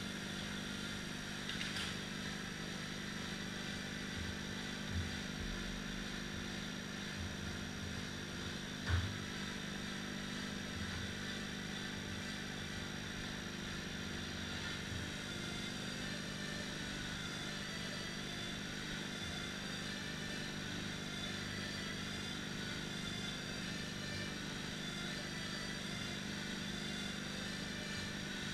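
A steady mechanical drone with a low hum, broken by two dull thumps, a small one about five seconds in and a louder one about nine seconds in.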